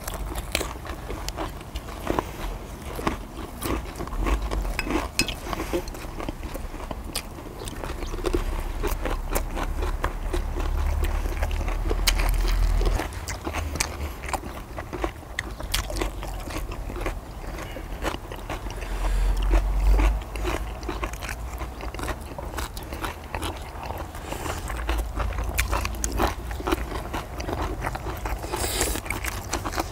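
Close-miked chewing and biting of grilled pork belly and gochujang-glazed deodeok, with many small clicks and crackles from the mouth and from chopsticks scraping the cast-iron cauldron-lid griddle. A low rumble swells and fades several times.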